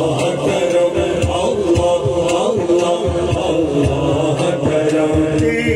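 Men singing a naat through a public-address system: a chanted melodic line held and ornamented, over a steady low rhythmic pulse.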